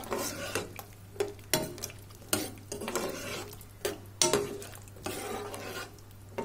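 A spoon stirring sweet and sour sauce in a pan, knocking and scraping against the pan at irregular intervals, with a low sizzle of the cooking sauce underneath.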